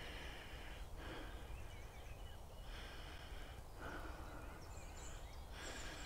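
Faint open-air countryside ambience: a low steady rumble under soft breathing that rises and falls about every second or so, with faint bird chirps.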